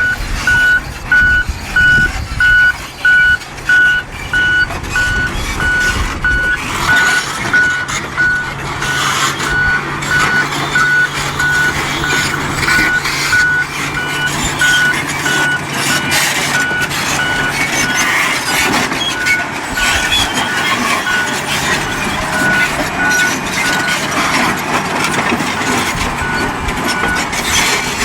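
Caterpillar D10 bulldozer running, its diesel engine holding a steady low note while its reversing alarm beeps about twice a second. About seven seconds in, a louder, rough mechanical noise of the working machine joins in and goes on, and the beeping fades under it.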